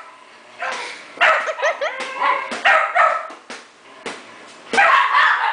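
Lhasa Apso barking repeatedly in short bursts, with a pause about four seconds in.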